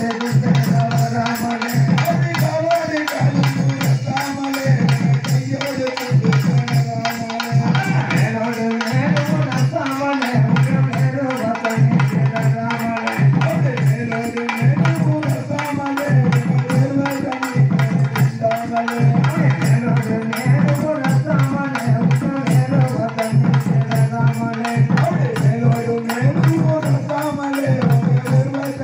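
Tamil oyilattam folk song: male voices singing through a loudspeaker system over a steady, repeating drum rhythm, with small hand cymbals keeping time.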